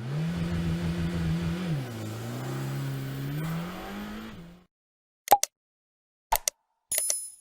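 Porsche 718 Cayman GT4 RS Clubsport's 4.0-litre flat-six engine running. Its note holds steady, drops about two seconds in, then climbs gradually before cutting off after about four and a half seconds. A few short sharp clicks follow near the end.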